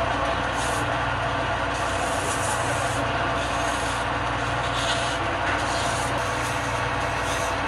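Sandpaper pressed by hand against a spinning turned wooden piece on a lathe: a steady rasping hiss over the lathe motor's hum.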